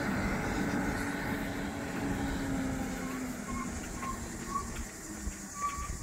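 A motor vehicle driving away down a paved road. Its engine and tyre noise fade steadily as it recedes, and the engine note drifts slightly lower.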